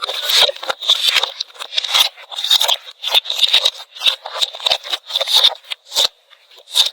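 Slime being squished and pulled by hand, giving a rapid, irregular run of sticky clicks and crackles that thins out near the end.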